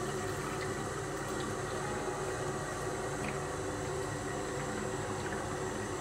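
Kitchen tap running steadily into the top reservoir of a water filter pitcher, filling it.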